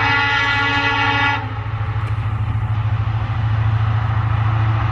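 Diesel locomotive horn sounding a held multi-tone chord that cuts off abruptly about a second and a half in, over the steady low rumble of a WDG4 diesel locomotive's engine hauling a double-stack container train; the rumble grows a little louder near the end as the locomotive comes closer.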